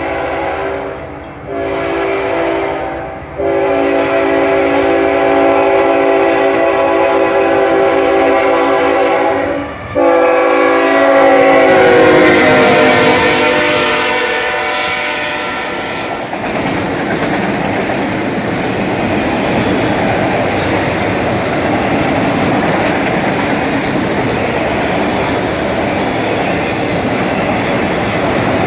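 Multi-note horn of the BNSF ET44C4 locomotives leading a freight train, sounded in several blasts as the train approaches; the last blast is held long and falls in pitch as the locomotives pass. About halfway through the horn stops, and the steady rolling noise and clickety-clack of autorack freight cars passing close by takes over.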